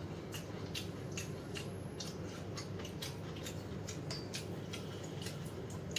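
A person chewing and crunching food close to the microphone, with a rapid, irregular run of short crisp clicks over a steady low hum.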